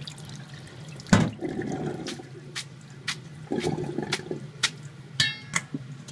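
Water splashing as cooked soba noodles are rinsed and shaken in a stainless steel mesh colander over a steel sink. A string of knocks and clanks of the colander against the sink runs through it, the loudest about a second in and a ringing metallic clank near the end.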